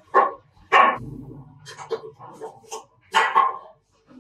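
A dog barking several times in short, loud barks, the loudest three near the start, about a second in and near the end.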